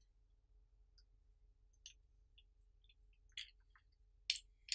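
A few faint, scattered clicks and taps of small parts being handled and slid together: the switch, spring guide, spring and spool of a paintball marker's bolt assembly.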